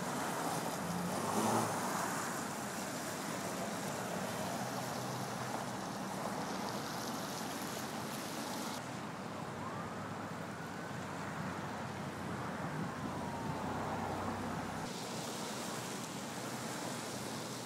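Steady hiss of road traffic, car tyres running on a wet, snow-covered road. The background changes abruptly twice, and a few faint gliding tones rise and fall partway through.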